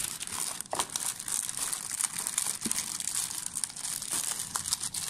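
Clear plastic packaging bag crinkling as it is handled, a steady run of fine crackles and small ticks.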